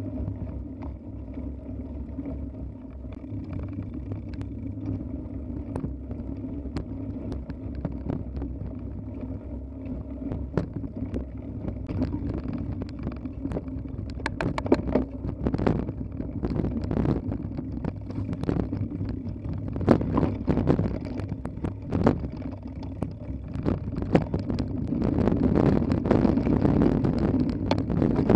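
Mountain bike ridden fast down a forest singletrack: a steady rumble of tyres and wind on the microphone, with sharp knocks and rattles from the bike over roots and bumps. The knocks come thicker from about halfway, and the whole gets louder near the end.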